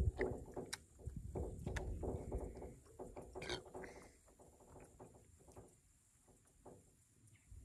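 Irregular knocks, clicks and rustling from a spinning rod and reel being handled, busy for about the first four seconds and then only a few scattered taps.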